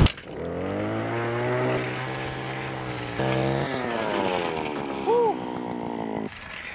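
Small engine of a gas-powered ice auger running, its pitch wavering and stepping up briefly about halfway, then cutting out suddenly near the end.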